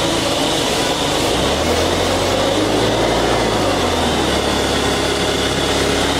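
Woodworking power machinery running steadily with a loud, even mechanical noise and a low hum.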